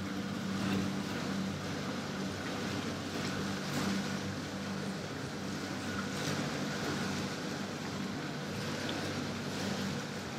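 Motorboat engine running at a steady speed, a low hum under a rush of water and wind.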